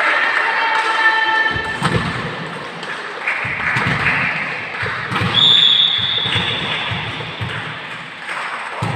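Volleyball play in a sports hall: repeated thuds of the ball being hit and bouncing on the court, with a held high tone a little past halfway.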